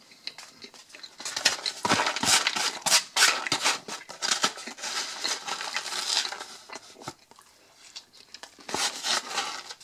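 Polystyrene foam takeaway box handled and rubbed by fingers, with scratchy creaking and scraping as crumbs are picked out of it. The scraping runs from about a second in until a short lull near the end, then starts again.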